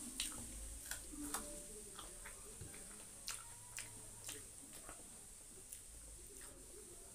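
Faint eating sounds of a person eating rice with the hand: about a dozen short, irregular wet clicks from chewing and from fingers working the food.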